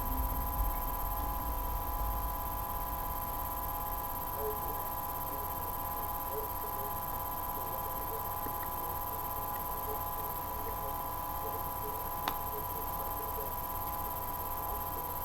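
A steady electrical hum made of several held tones, with a single faint click about twelve seconds in.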